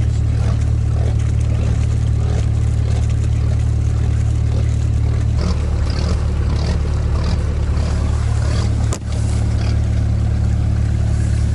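Sherp 6x6 amphibious ATV's diesel engine running steadily with a heavy low drone as it drives through a swamp, with one brief break and click about nine seconds in.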